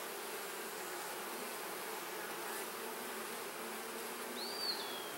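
Honeybees buzzing in a steady, even hum from an opened hive. A bird gives one short whistled call that rises and falls, near the end.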